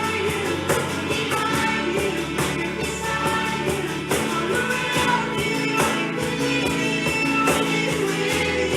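Band music with a steady beat and singing, in the style of a worship song.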